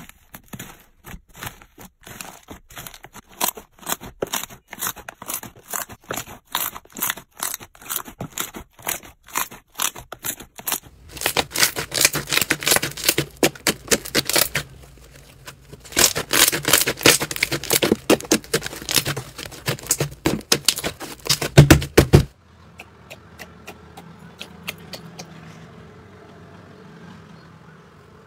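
Slime being handled by hand: for the first ten seconds or so, rapid sharp crackles as paper labels are pulled from slime. Then denser, louder crackling and popping as a purple fluffy slime is kneaded, which cuts off suddenly about 22 seconds in. The last few seconds hold a faint, soft squish of a clear slime being pressed.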